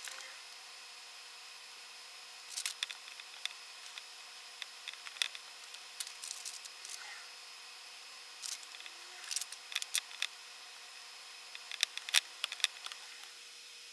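Faint, scattered clicks and rustles of hands handling paper manual pages and the small plastic parts of a quadcopter, coming in several short clusters over a faint steady hum.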